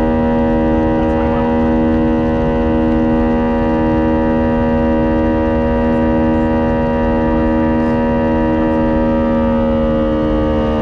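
Airbus A320's jet engines running at steady thrust: a loud hum of several held pitches over a low rumble, the pitches beginning to slide slightly lower near the end.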